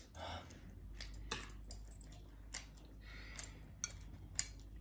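Faint, scattered clicks and clinks of chopsticks against porcelain plates and bowls, a handful of separate taps spread out, the sharpest near the end.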